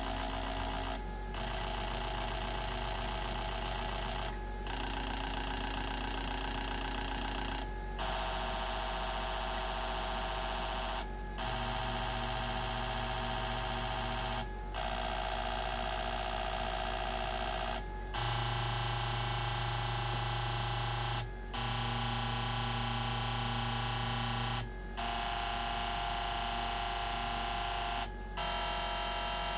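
Mazdaspeed3 2.3 DISI direct fuel injectors buzzing as an injector test bench pulses them rapidly one at a time for a spray-pattern test. The buzz breaks off briefly about every three seconds as the bench moves from one injector to the next, over a steady low hum.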